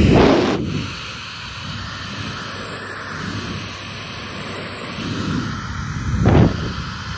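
Hair dryer blowing steadily, its airflow buffeting the microphone in low rumbles near the start and again about six seconds in.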